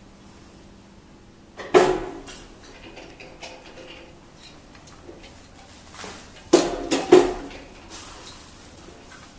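Metal parts of a carousel screen printing press clanking as its steel arms, brackets and clamps are handled and adjusted by hand. There is one sharp clank about two seconds in and three in quick succession about seven seconds in, each ringing briefly, with lighter clicks and taps between.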